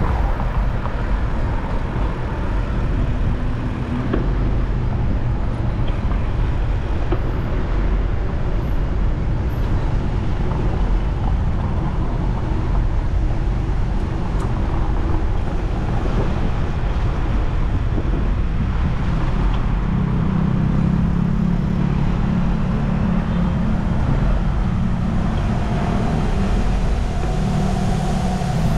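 City road traffic: a steady mix of car and engine noise, with a nearby engine's low drone growing stronger about twenty seconds in.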